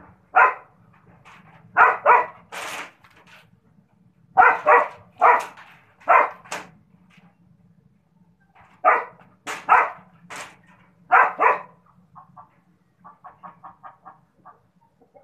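Dog barking repeatedly in short sharp barks, in clusters with short pauses between, followed near the end by a run of faint quick clicks.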